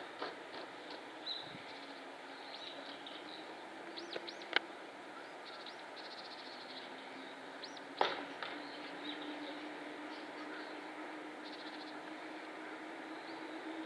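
Oriental greenfinches calling in short chirps, arched notes and brief trills. Two sharp clicks come near the middle, and a steady low hum sets in about halfway through.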